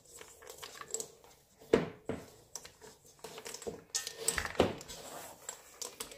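Cookie dough full of chocolate chunks being worked by hand in a mixing bowl: irregular soft thumps and knocks. The loudest comes about two seconds in, and a busier run follows around four to five seconds.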